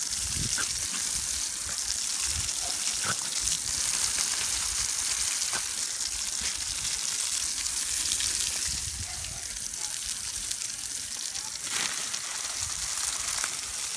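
Garden hose spraying a stream of water onto grass: a steady hiss of spray and splashing.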